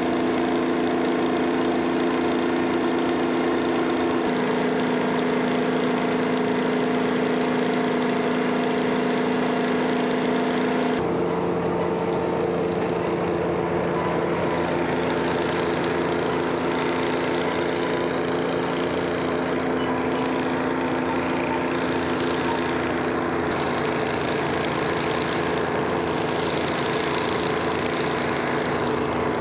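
Twin Detroit Diesel 6-71 two-stroke supercharged diesel engines of a Chamberlain tractor running steadily under load while pulling a wide seeder, a constant multi-note drone. The tone changes abruptly about four seconds in and again about eleven seconds in.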